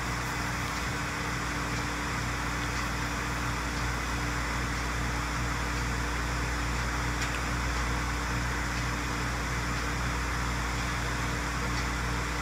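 Steady hiss with a low, constant hum underneath; no menu music or other event is heard.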